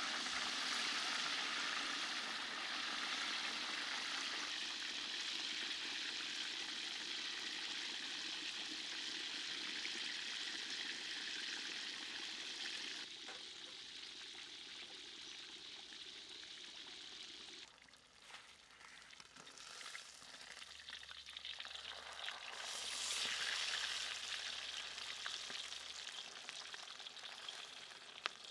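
Hot oil sizzling as a whole fish deep-fries in a wok, with oil ladled over it. The sizzle drops away sharply about two-thirds of the way through, then builds up again.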